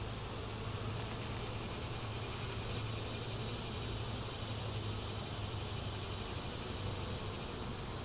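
Honeybees humming steadily around an open hive, the buzz of a large colony disturbed during a frame inspection, with a steady high-pitched whine underneath.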